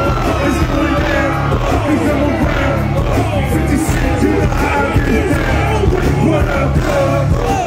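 Live hip-hop performance through a concert PA: a rapper's vocals over a heavy, steady bass beat.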